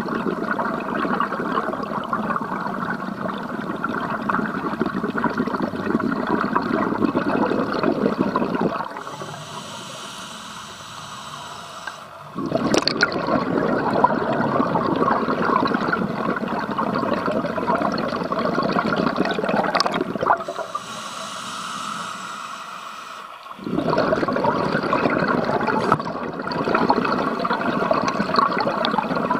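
Scuba diver breathing through a regulator, heard underwater. Long stretches of rushing, bubbling exhaled air are twice broken by a few seconds of quieter hissing inhalation, about a third of the way in and again about two-thirds in.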